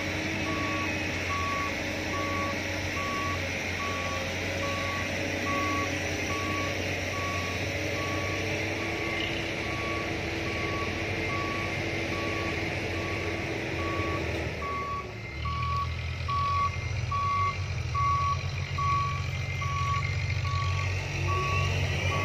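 Dump truck's reversing alarm beeping steadily, about once a second, over its diesel engine running. About two-thirds of the way through, the engine rumble turns louder and rougher.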